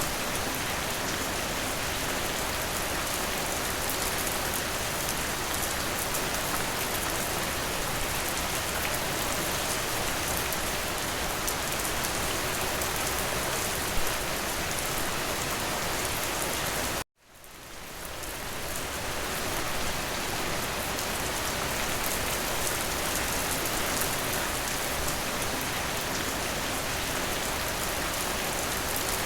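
Steady, even rain. About two-thirds of the way through it cuts out abruptly, then fades back in over a couple of seconds.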